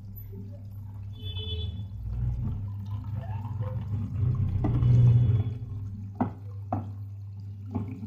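Fill water rushing into the detergent dispenser drawer of a Bosch front-load washing machine, flushing the compartments. The rush swells to its loudest about five seconds in over a steady low hum, and a few sharp clicks follow near the end.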